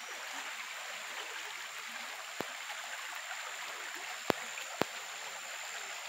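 A river swollen by flooding flowing steadily, an even rushing of water. Three sharp clicks cut through it, one around the middle and two close together later.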